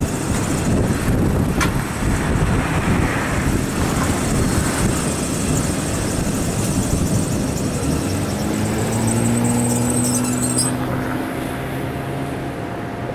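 Ride noise aboard a PCC streetcar running on street track: a steady rumble of wheels and motors with a thin high-pitched squeal over it. A low whine comes in as the car slows to a stop near the end, and the squeal cuts off.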